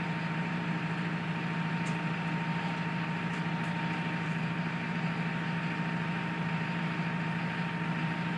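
Steady machine hum with a thin constant whine above it, holding one level throughout.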